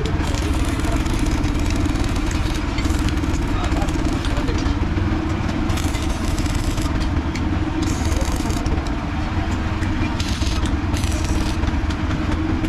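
Stick welding steel frame members onto a galvanized wheelbarrow tray: the welding arc crackles in stretches over a steady low hum of running machinery.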